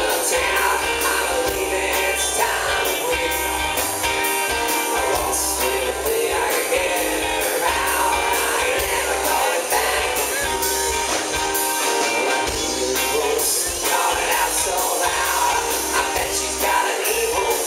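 Live rock band playing: a male singer over strummed acoustic guitar, electric guitar, bass and drums, with a steady drum beat.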